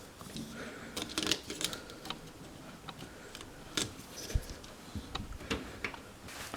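Irregular clicks and light knocks of hands handling washing machine parts around the door latch.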